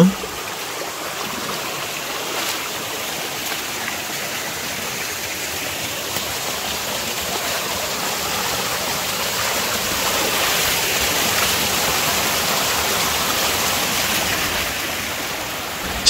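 A rocky mountain stream splashing over boulders in small cascades: a steady rush of water that grows somewhat louder about two-thirds of the way through.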